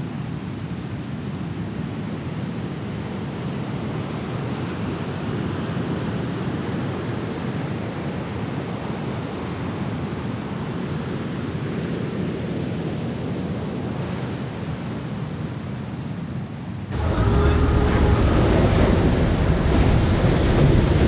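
Steady roar of giant surf and wind on the microphone. About 17 s in it cuts abruptly to a louder, closer roar of breaking surf, with a faint steady engine tone from a jet ski idling in the channel.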